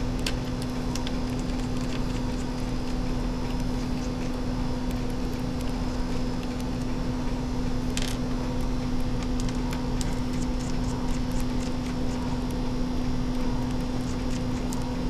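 Steady background hum with faint, scattered clicks and taps from small hand work on a laptop screen's metal bracket and its screws.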